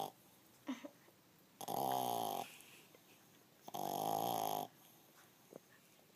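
French bulldog puppy snoring in her sleep: two snores, each about a second long, about two seconds apart.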